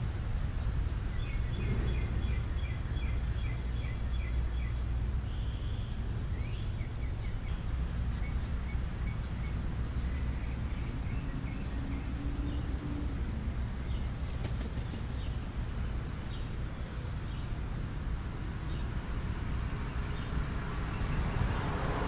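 Birds chirping: a quick run of repeated short chirps in the first few seconds, then scattered single chirps, over a steady low rumble.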